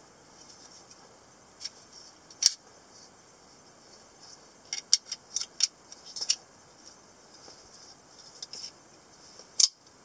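Handling of a semi-automatic (spring-assisted) folding pocket knife: scattered small clicks and taps of its metal and plastic parts, with a cluster of quick clicks in the middle. Near the end comes one sharp snap as the blade flicks open and locks.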